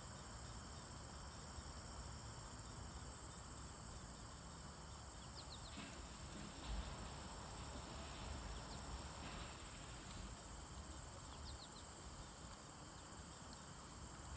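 Steady, faint chorus of insects chirring in the grass, with a few short high chirps over it and a brief low thump about halfway through.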